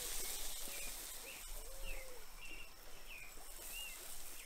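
Small birds chirping: a run of short, bent chirps about every half second, with a couple of lower drawn-out whistles. A high hiss is strongest at the start and dies away within the first second or so.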